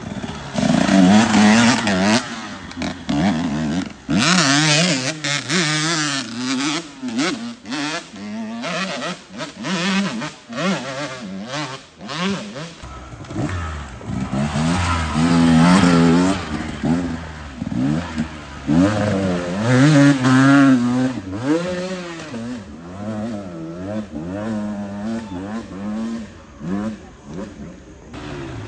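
Dirt bike engines revving up and down as the bikes ride through on a muddy trail, with repeated rises and falls in pitch from throttle blips. Several bikes go past one after another.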